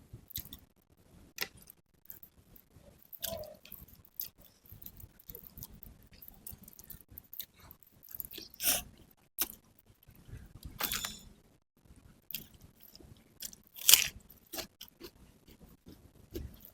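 Close-miked chewing and crunching of nasi pecel and sate kikil: irregular wet mouth clicks and squishes with several louder crunches, the loudest near the end.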